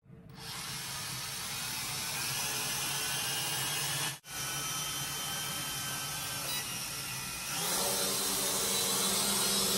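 Small electric motors and propellers of a toy flying-car quadcopter drone spinning with a steady whine. It drops out briefly about four seconds in, and near the end the whine rises in pitch and gets louder.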